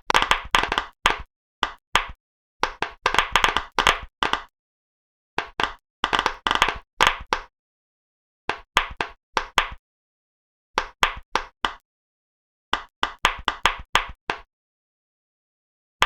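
Pop-it fidget toy bubbles being pressed: quick runs of crisp popping clicks in about seven bursts, each broken off by dead silence.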